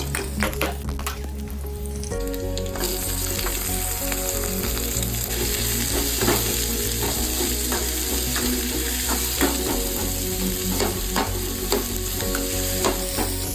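Pork pieces frying in a pan with stirring: a few sharp clicks, then about three seconds in a steady sizzle starts and runs on with scrapes and clinks of the stirring.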